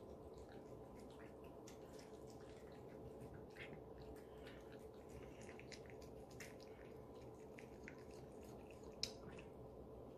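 Cats chewing and licking wet canned food from bowls: faint, irregular wet clicks and smacks, with one sharper click about nine seconds in.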